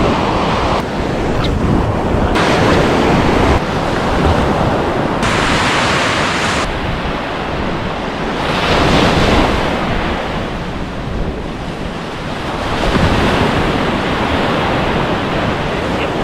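Waves surging and washing in, with wind buffeting the microphone; the noise swells louder about halfway through and again near the end.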